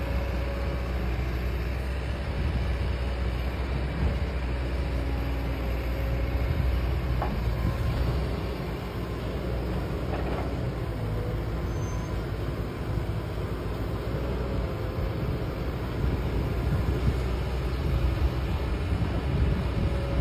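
Kobelco SK200 hydraulic excavator's diesel engine running steadily under load with a faint hydraulic whine as it digs and loads a dump truck, with a couple of short knocks about 7 and 10 seconds in.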